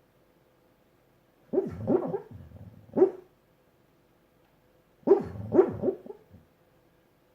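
Snoring in two bouts about three and a half seconds apart, each a cluster of three short pitched sounds with a low rumble between them.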